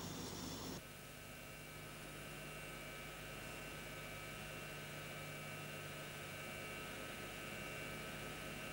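Faint steady electrical hum with light hiss, its tone shifting slightly about a second in.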